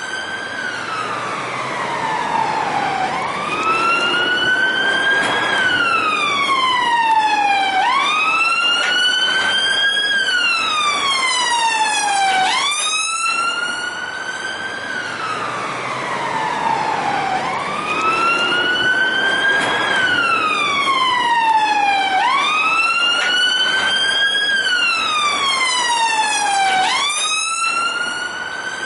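Police car siren on a slow wail: one tone rising and falling, sweeping up quickly and gliding back down, about once every four to five seconds.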